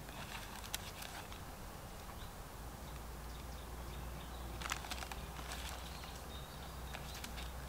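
Faint outdoor ambience: a few scattered light clicks and rustles, with a brief faint bird chirp about six and a half seconds in.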